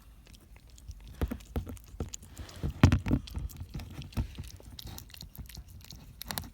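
Cat chewing and smacking on tuna close to the microphone: irregular wet clicks and smacks that begin about a second in, the loudest near the middle.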